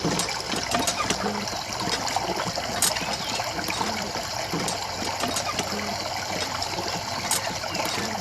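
Water trickling in a small steady stream.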